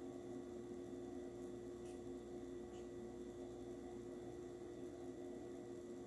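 Oven running while baking, giving a faint, steady hum with a few fixed tones. Two faint ticks come about two seconds in.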